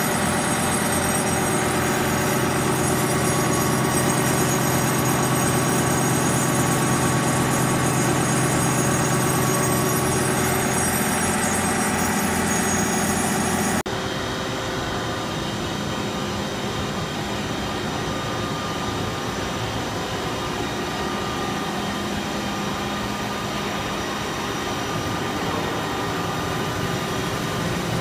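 A TOS WD-130 floor-type horizontal boring mill with a 5-inch spindle, running: a steady mechanical whir with many held tones from the spindle drive. About halfway through it cuts abruptly to a quieter steady machine hum.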